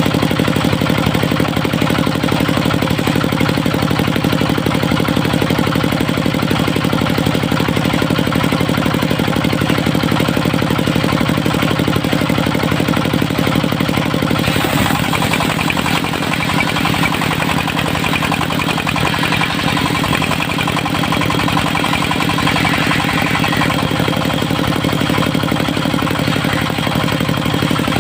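Engine of a mobile circular-saw sawmill running steadily. About halfway through, its note drops slightly and a higher hissing noise joins in.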